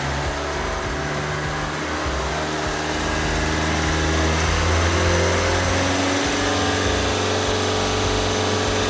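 Drivetrain of a 2013 diesel Hyundai ix35 running in gear on a lift, wheels spinning freely, giving a steady whirring hum. About four seconds in it rises slightly in pitch and gets a little louder as the engine speeds up. The propeller shaft is turning on its newly fitted center support bearing.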